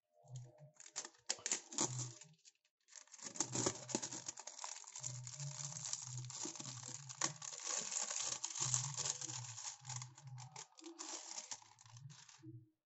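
Clear plastic wrapping film crinkling and tearing as it is pulled off a corrugated plastic box, in a dense crackle from about three seconds in until just before the end, after a few scattered handling clicks.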